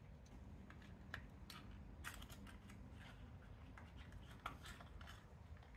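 Faint scattered clicks and light metallic taps from handling a spark plug at a motorcycle's cylinder head, over a low background hum.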